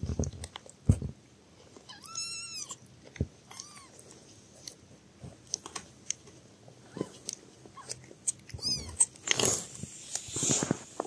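Newborn kittens nursing: wet suckling and smacking mouth clicks throughout, with a thin high-pitched kitten mew about two seconds in, a shorter one soon after, and a quick squeaky run of cries near the end. Soft rustling of fur and cloth follows the cries.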